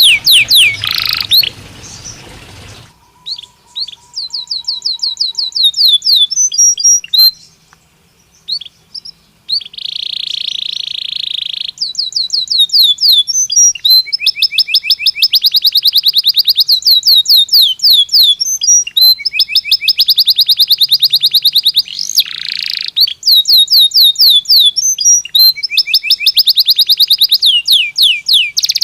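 Belgian canary singing long, fast trills and rolls of rapidly repeated high notes, with a short pause about a third of the way through.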